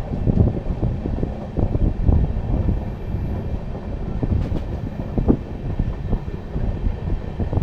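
A train running on the rails: a steady low rumble with many short, irregular knocks from the wheels and cars.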